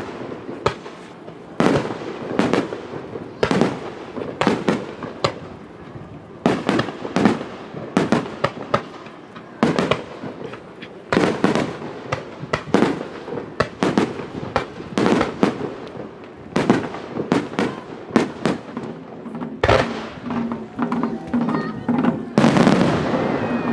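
Aerial firework shells bursting in a rapid-fire star mine and ten-shot volleys: loud sharp bangs at uneven spacing, often several a second.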